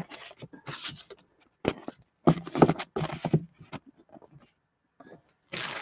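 Sheets of patterned designer series paper rustling and sliding as they are turned over and moved by hand. About two seconds in there is a brief pitched vocal sound lasting about a second.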